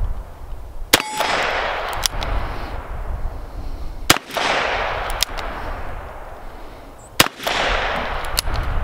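Three shots from a Taurus Defender 856 .38 Special revolver firing 158-grain semi-wadcutters, about three seconds apart, each followed by a rolling echo. About a second after each shot comes a faint ding of the steel target being hit.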